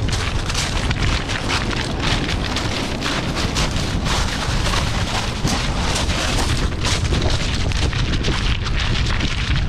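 Strong wind buffeting the microphone, a continuous deep rumble, over a steady rushing hiss of wind and surf on an open beach.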